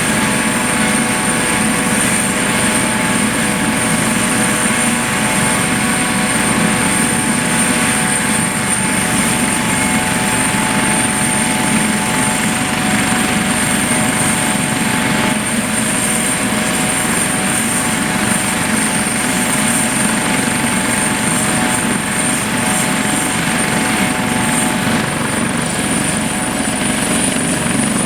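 Aerospatiale AS 365 Dauphin helicopter running close by: a steady high turbine whine from its twin turboshaft engines over loud rotor noise. The whine rises slightly near the end.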